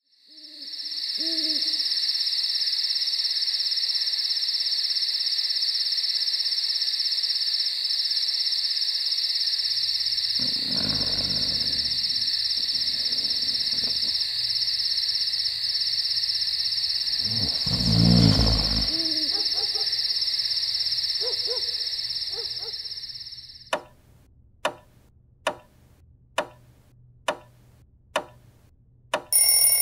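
Night ambience: a steady high-pitched insect chorus with an owl hooting near the start and two low rumbles midway. The chorus stops about 23 seconds in and a clock ticks a little under once a second, then an alarm clock bell starts ringing at the very end.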